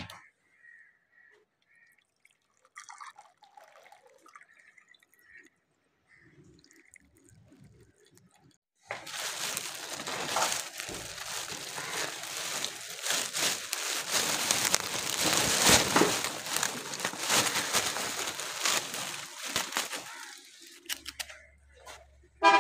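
Clear plastic bag of rusks being handled, crinkling and rustling loudly for about ten seconds, starting about nine seconds in, after a few faint knocks and handling sounds.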